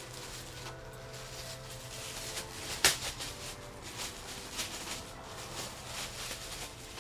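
A fishing-rod box being handled and opened: scattered rustling and light taps, with one sharp snap about three seconds in.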